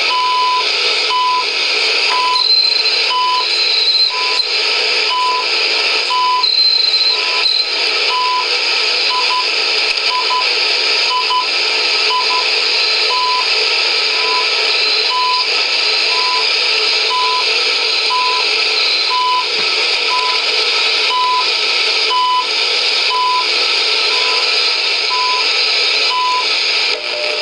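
CHU Canada shortwave time signal heard through the HP 8920A service monitor's receiver: a short beep once a second over steady hiss and static. A few higher-pitched beeps sound in the first several seconds.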